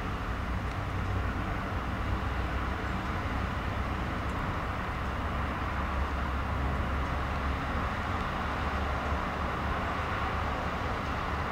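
Steady low drone of the cargo ship Arklow Willow's diesel engine as she gets under way, heard under an even hiss.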